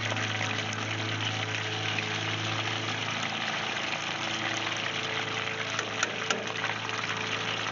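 Breaded perch fillets deep-frying in hot oil in a cast iron Dutch oven: a steady sizzle and crackle over a low steady hum. A few light metal clicks come about six seconds in as tongs work in the pot.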